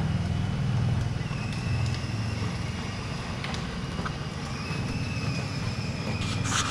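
Battery-powered children's ride-on toy jeep driving over paving stones, its electric motor and gearbox giving a steady low whir, with a short burst of noise near the end.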